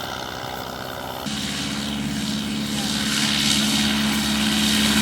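De Havilland Tiger Moth biplane's engine and propeller running with a steady drone. The sound changes abruptly about a second in, then grows gradually louder.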